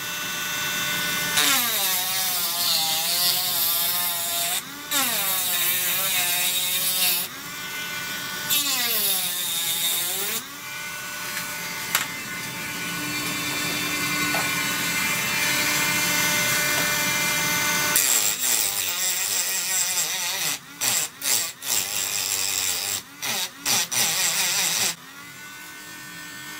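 High-speed rotary tool spinning a homemade sandpaper-on-dowel sanding drum. The motor whine sags and recovers in pitch as the drum is pressed into the work and is steadier in the middle. Near the end come rapid scratchy grinding and brief cut-outs, then it stops.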